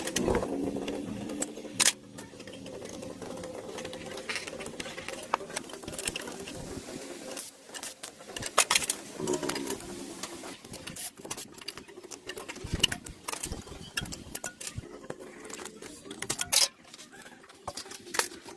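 Irregular clicks and knocks of hand tools being worked, with a few louder sharp knocks, including one near the end.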